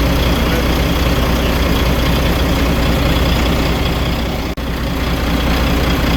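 Volvo FH12 truck's 12-litre straight-six diesel idling steadily during diagnostics of a misfire and knock. The sound drops out for a split second about four and a half seconds in.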